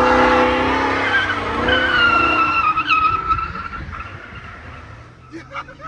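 Car tyres squealing in a long skid, a loud screech with a wavering pitch that fades away over about five seconds.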